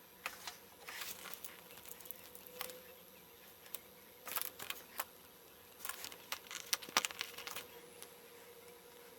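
LEGO plastic pieces being handled and pressed together: irregular small clicks and brief rustles, with a faint steady hum underneath.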